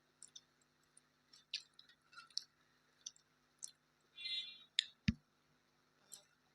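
Quiet close-up eating sounds: scattered wet mouth clicks and chewing. About four seconds in there is a short squeak, and just after five seconds a single sharp knock, the loudest sound.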